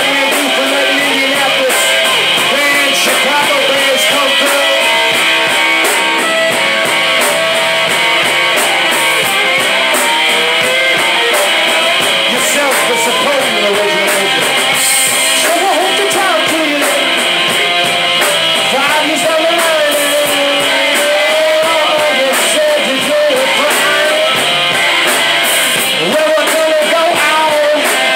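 Live rock band playing loud: distorted-free electric guitars, bass and drums with cymbals, and a man singing over them.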